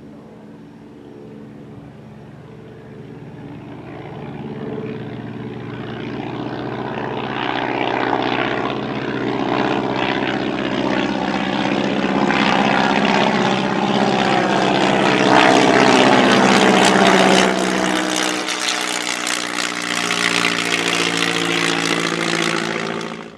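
Bücker Jungmann (CASA 1.131) biplane's propeller engine on a fly-by: the steady engine note grows louder for about fifteen seconds, peaks as the aircraft passes, then drops in pitch as it moves away, and cuts off suddenly at the end.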